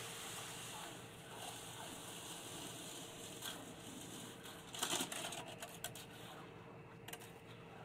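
Faint scraping and knocking of hand tools working wet concrete in a wall form, with a short cluster of knocks about five seconds in and a single click near the end, over a steady hiss and faint hum.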